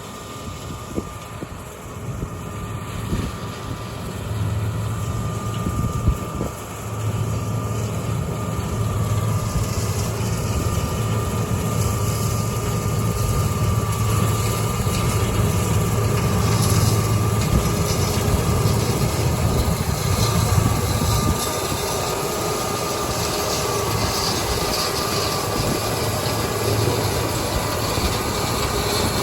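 Farm machinery engine running steadily with a rumble and a faint steady whine, growing louder from about four to seven seconds in.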